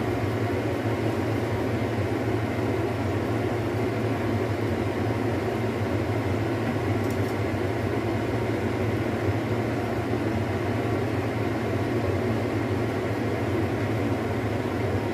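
Steady whirring hum of a kitchen fan running without change.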